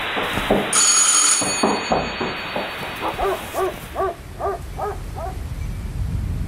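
Hiss, then a brief loud high-pitched burst about a second in, followed by a run of short warbling pitched tones, about three a second, that stop a little past five seconds.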